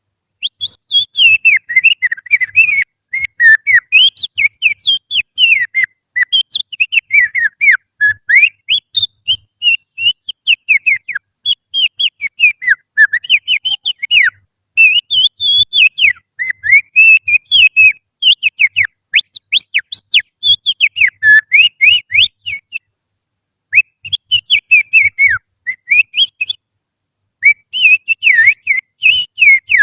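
Finger whistling that imitates the song of an Oriental magpie-robin: rapid warbling phrases of quick rising and falling notes with short pauses between them. It is a lure call meant to set a caged magpie-robin singing.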